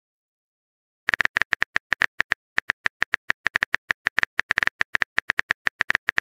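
Phone keyboard tap clicks as a message is typed: a rapid run of short, identical clicks, several a second with brief pauses, starting about a second in.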